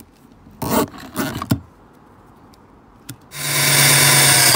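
Cordless drill spinning up and boring through the plastic floor of a crate, a steady motor whine over the bit's cutting hiss, lasting just over a second near the end.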